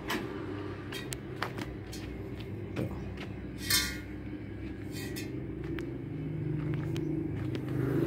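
An engine running steadily in the background, getting a little louder in the second half, with a few light clicks and scrapes from the metal tank being handled.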